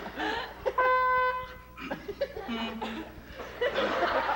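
A trumpet blares one loud held note for about a second, then gives a short, lower, fainter note. Voices rise near the end.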